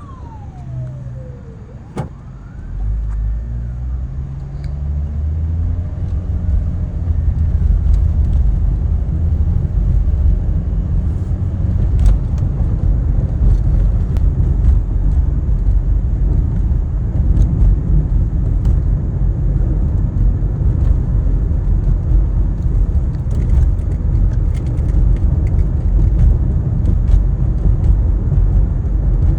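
GAZelle ambulance siren wailing down in the first second and a half, with a brief rising whoop after it. Then a vehicle engine revs up and settles into a steady heavy low rumble of driving.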